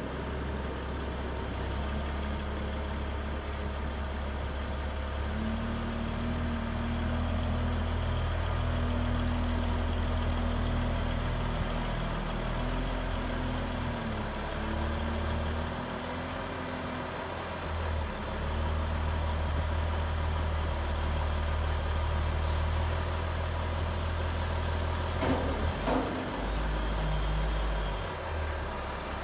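Heavy vehicle engine running steadily, its pitch rising and dipping slightly now and then, with a few knocks near the end.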